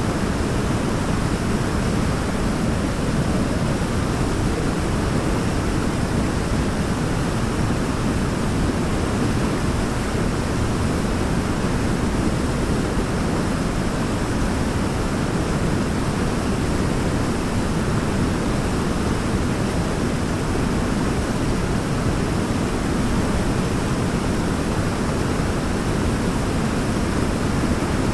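Waterfall: a steady, unbroken rush of falling water, heaviest in the low and middle range.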